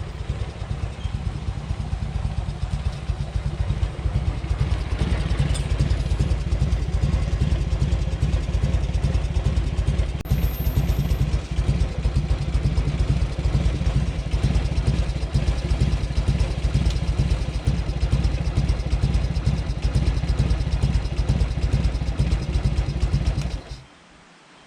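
Harley-Davidson Shovelhead V-twin engine running steadily with a dense, even low-pitched beat, cutting off abruptly about a second before the end.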